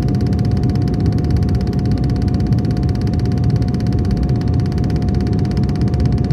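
Steady rumble of an aircraft in flight, heard from inside the cabin, with a steady whine held on one pitch above it.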